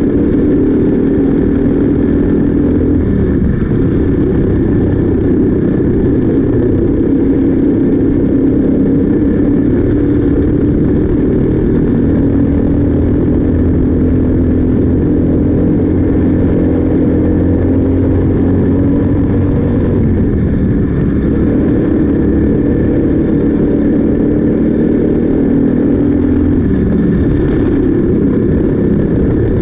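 Briggs & Stratton LO206 single-cylinder four-stroke kart engine running hard, heard from on board the kart, its pitch climbing along the straights and dropping briefly several times as the kart slows for corners.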